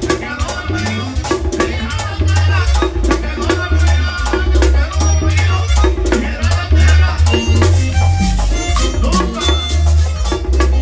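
Live merengue típico band playing at a fast steady beat: accordion melody over a pulsing electric bass line, with a güira scraping a continuous rhythm.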